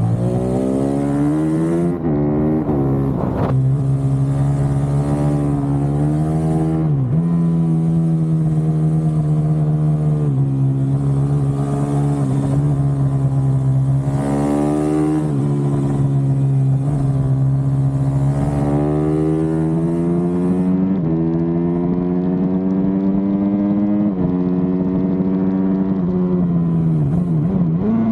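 Small motorcycle engine ridden hard on a track. Its revs climb and then drop sharply again and again.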